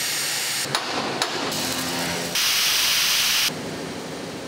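Metal fabrication shop noise in quick cuts: an angle grinder grinding steel, a few sharp metal clanks about a second in, then a loud steady hiss for about a second that drops to a quieter hiss near the end.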